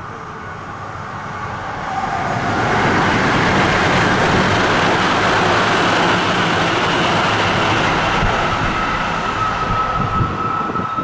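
A Tsukuba Express train passing through the station without stopping, at about 130 km/h. A rushing noise builds about two seconds in, then the wheels on the rails run loud and steady, with a steady high whine near the end.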